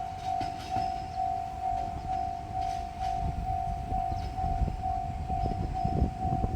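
Japanese level crossing warning bell ringing in a steady electronic tone, about two rings a second. Under it, the rumble of a diesel train builds from about halfway through, with wheel knocks near the end.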